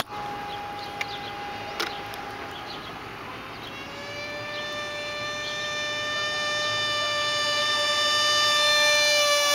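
Outdoor warning siren winding up: a single wailing tone rises in pitch about four seconds in, then holds steady while growing louder.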